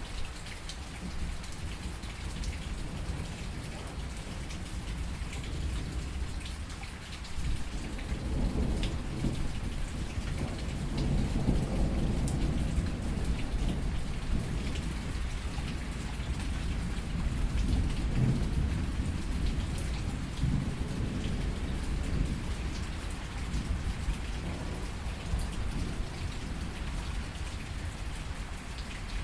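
Steady rain falling on a surface with scattered drop ticks, while a long low rumble of thunder swells in about a quarter of the way in and rolls on for some fifteen seconds before fading.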